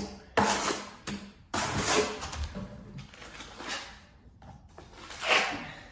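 A metal plastering trowel scraping and spreading wet bonding plaster into the gap around a socket box, in several separate strokes about a second apart.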